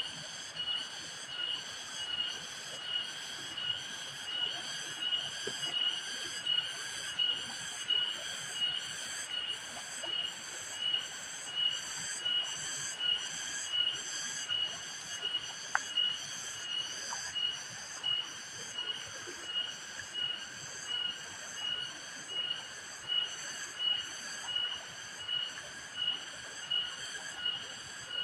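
An unseen animal calling with a shrill, evenly repeated pulse, about one and a half calls a second, held steadily throughout.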